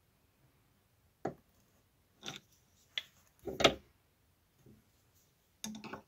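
Several separate metallic clicks and short clatters of steel flat-blade screwdrivers and a bench vise being handled against a NEMA 17 stepper motor as the screwdrivers are set under its press-fit pulley. The loudest, a brief clatter, comes about three and a half seconds in.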